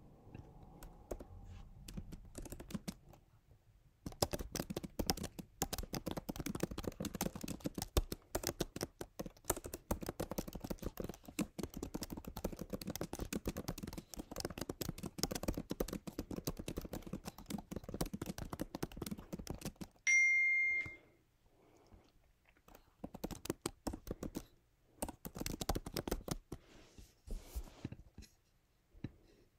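Typing on a computer keyboard: a rapid, continuous run of keystrokes for about sixteen seconds. About twenty seconds in, a short, loud electronic beep sounds for about a second, then a few more short runs of keystrokes follow.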